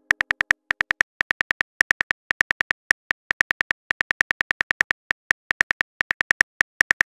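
Phone keyboard tap clicks from a texting app, one short pitched tick per letter in quick uneven runs of about four to six a second, as a text message is typed out.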